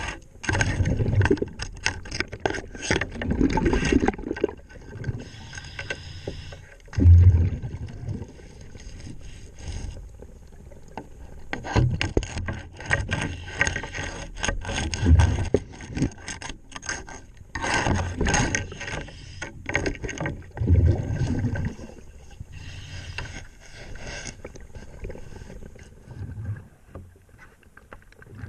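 Hull-cleaning tools scrubbing and scraping along a yacht's submerged hull, heard underwater as irregular strokes. Low rumbling surges come every few seconds.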